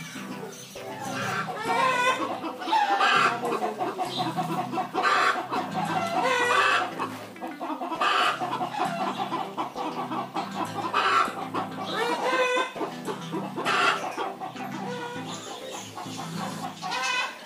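Poultry calling again and again, a wavering cluck-like call about every second and a half, over background music.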